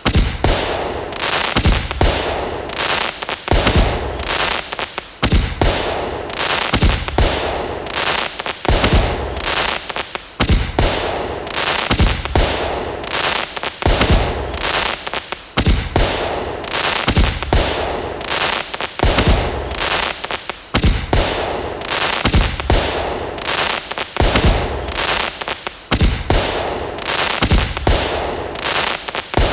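Fireworks sound effect: bangs, pops and crackles going off one after another without a break, with hissing and short falling whistles between the bursts.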